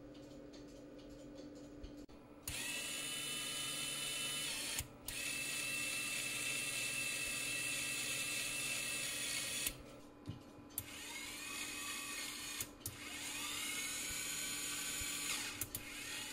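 Small 12-volt DC focus motor of a Hydro Products underwater vidicon camera driving the lens through its gear train: a whine with a gear tone that rises as the motor spins up. It starts a couple of seconds in and runs about seven seconds with one brief break, then runs again in three shorter bursts.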